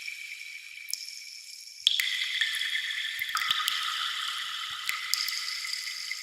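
Water-drop sound effect: resonant plinking drops that each ring on as a held tone, new drops landing at different pitches every second or two and getting louder about two seconds in.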